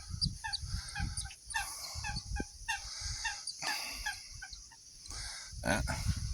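Ducks quacking in a quick series of short, repeated calls, with a low rumble underneath.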